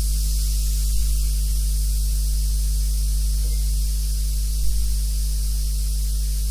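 Steady low electrical hum with a constant hiss over it, unchanging throughout.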